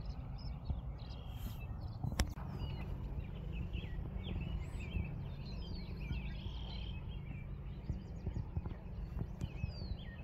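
Small birds chirping and calling in many short notes, some as quick falling whistles, over a low steady rumble. A single sharp click about two seconds in.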